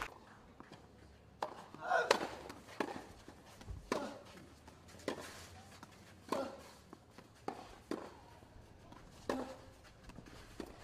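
Tennis rally on a clay court: tennis balls struck by rackets about once every second or so, the near player's shots louder than the far player's.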